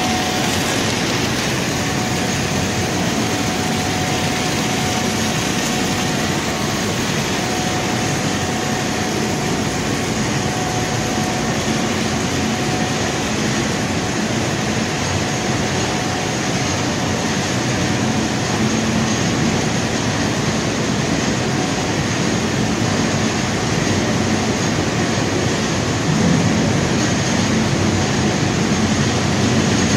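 Bread crumb production line machinery running: a steady, dense mechanical noise with a faint steady whine through the first half, growing a little louder near the end.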